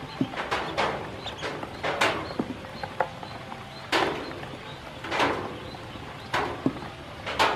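A brood of ducklings in a plastic tub: small high peeps scattered throughout, over irregular knocks and scuffs as bills and feet hit the plastic, the loudest about two, four, five and seven seconds in.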